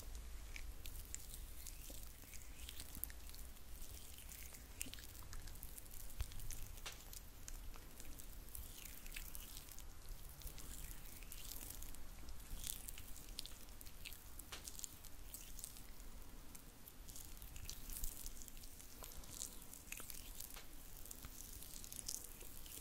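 Hands slick with massage oil rubbing and squishing, making a steady stream of small, irregular wet crackles and clicks.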